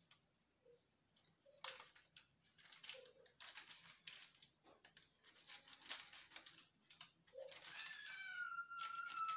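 Knife slicing a log of cookie dough on parchment paper: a run of light crinkles, rustles and taps of the blade. Near the end a long high cry comes in, rising, holding one pitch, then falling, louder than the cutting.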